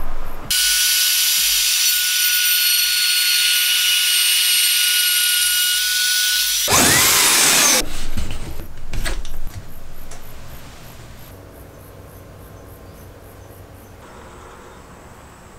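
A power tool running for about six seconds with a steady high whine, then stopping. Scraping and a few sharp knocks follow, and the rest is much quieter.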